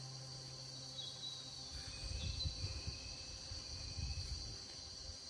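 Steady high-pitched insect chorus. From about two seconds in, an irregular low rumble joins it.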